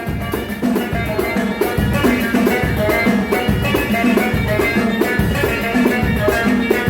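Moroccan aita music: violin melody over a driving rhythm of hand drums, an instrumental passage with no singing.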